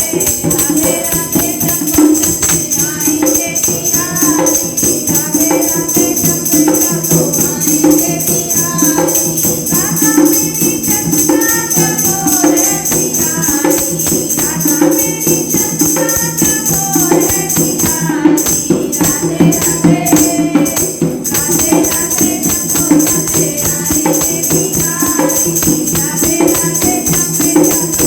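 Women singing a Hindi devotional bhajan to Krishna, with a steady jingling rhythm from tambourine-like percussion that changes briefly about two-thirds of the way through.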